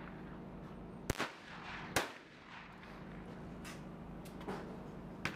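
Two sharp shotgun reports about a second apart over a steady low background, with a smaller crack near the end.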